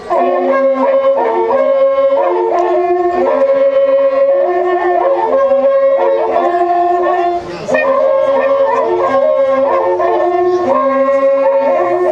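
Several waqrapukus, Andean spiral horn trumpets made of joined cattle-horn segments, played together in long held notes that step between a few pitches. There is a short break about seven and a half seconds in, then they play on.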